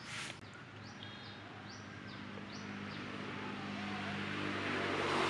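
Short high bird chirps, about five of them in the first three seconds. Then a motor vehicle's engine hum approaching, growing steadily louder toward the end.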